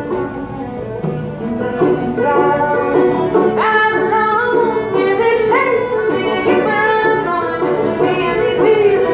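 Fiddle and banjo playing together in an instrumental break, the fiddle's bowed melody sliding between notes over the picked banjo.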